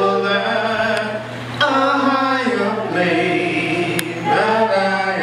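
A congregation singing a hymn together in slow, held notes that step from one pitch to the next.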